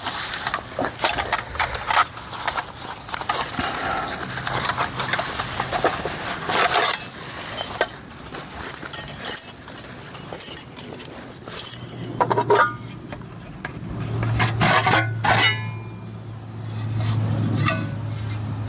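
Metal mess tins being unpacked, pulled apart and set down, with repeated clinks and clatters of metal on metal and some plastic-bag rustling. A low steady hum comes in about two-thirds of the way through.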